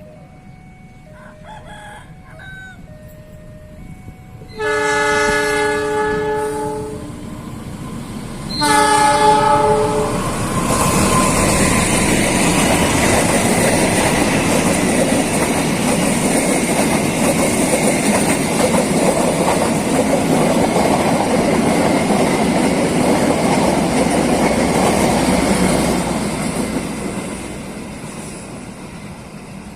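Train locomotive horn sounding two loud blasts, the first about five seconds in and lasting about two seconds, the second shorter, about four seconds later. The train then passes close by with heavy rumbling and wheel clatter for about fifteen seconds, fading near the end. Before the horn, a faint two-tone signal alternates.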